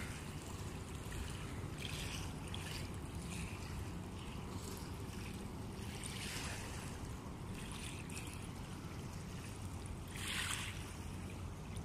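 Riverbank ambience: a steady low drone of distant engines under wind, with brief soft hissing swells, the loudest about ten seconds in.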